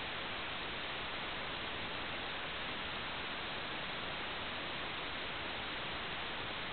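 Steady static hiss with no pitch and no change, the sound of an analog wireless video receiver's audio channel carrying no signal.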